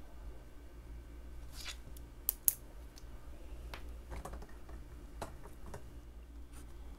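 Scattered small clicks and taps from a pen being handled on a desk, the two loudest close together about two seconds in, over a faint steady hum.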